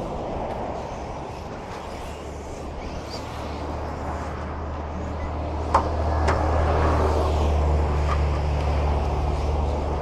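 Radio-controlled racing trucks running on a dirt off-road track, with two sharp knocks close together about six seconds in, over a low steady rumble that grows louder in the second half.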